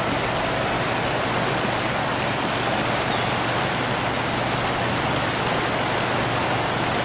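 Shallow river rushing over boulders and riffles: a steady, even rush of water.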